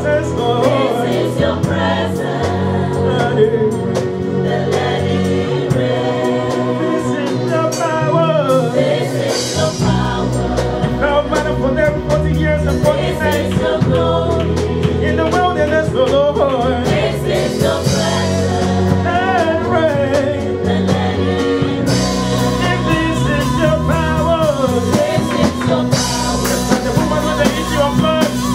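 Live gospel worship song: a lead singer and a group of backing singers on microphones, with a band and drums behind them. A deep bass comes in about ten seconds in.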